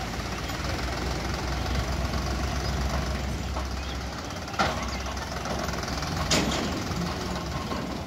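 Sonalika tractor's diesel engine running steadily while it works a tipping trailer of soil. Two sharp knocks come about a second and a half apart midway through.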